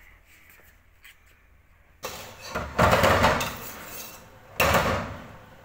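Metal spoon scraping and knocking around inside a steel cooking pot while stirring, starting suddenly about two seconds in, with two loud bursts.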